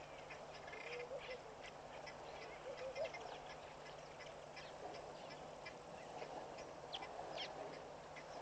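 Birds calling at a waterhole: a few short low calls about one and three seconds in, with many brief high chirps scattered throughout, over a steady low hum.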